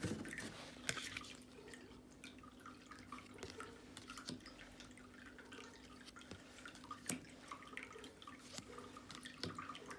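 Faint, irregular light clicks and rustles of tarot cards being handled and flipped through one by one, over a steady low hum.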